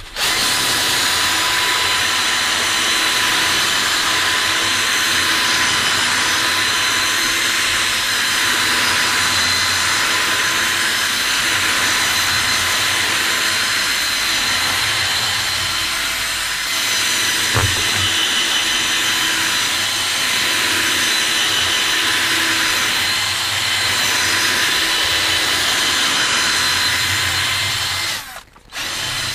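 Power drill spinning a rotary nylon-bristle scrub brush over foamed cloth seat upholstery: a steady motor whine with the hiss of bristles on the fabric. It cuts off near the end, and a single knock sounds about halfway through.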